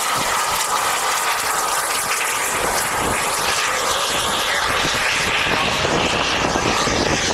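Radio-controlled model jet at full power on its take-off run and climb-out: a steady whine over a rushing hiss, growing fuller about three seconds in as it lifts away.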